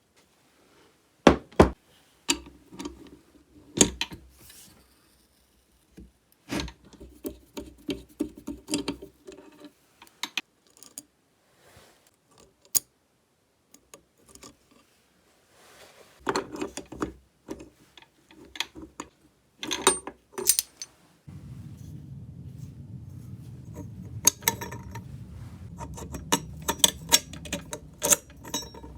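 Tools and metal chainsaw parts clicking, knocking and clinking while the saw is taken apart. A steady low hum starts about two-thirds of the way through and runs under the clinks.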